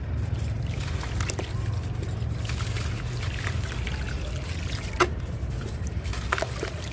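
Dry clay crumbling and trickling, with scattered sharp crackles; the sharpest comes about five seconds in. A steady low hum runs underneath.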